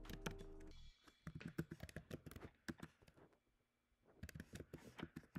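Typing on a computer keyboard: quick runs of key clicks, broken by a short pause about three and a half seconds in. A faint steady hum under the clicks cuts off about a second in.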